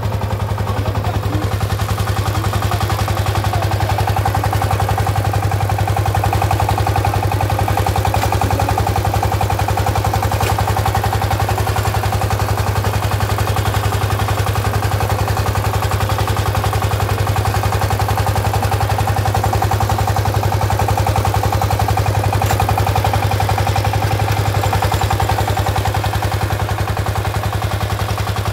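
Two-wheel walking power tiller's single-cylinder diesel engine running steadily under load with a rapid, even chugging, driving its rotary tiller through the soil.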